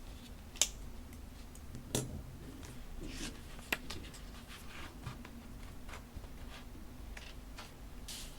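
Paper and stationery handled on a desk: soft rustling and scraping, with three sharp clicks.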